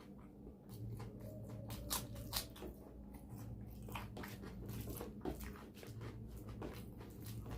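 A person chewing food close to the microphone, with many short wet mouth clicks and smacks scattered irregularly through, over a steady low hum.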